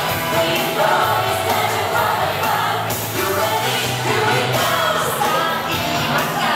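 Music with singing, played over stage loudspeakers for a dance show.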